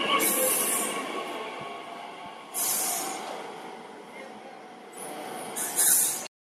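DB Regio electric multiple unit running past a station platform: a steady rumble of wheels on rails with three short surges of high hiss. The sound cuts off suddenly near the end.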